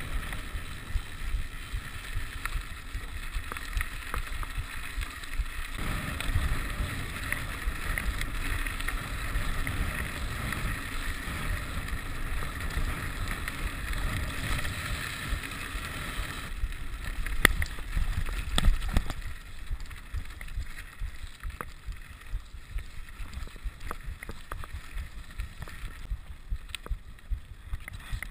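Rigid 29er mountain bike rolling over a gravel road: tyre crunch and frame rattle with wind buffeting the microphone. The gravel hiss is louder from about 6 to 16 seconds, a few sharp knocks come around 17 to 19 seconds, and the sound is quieter after that.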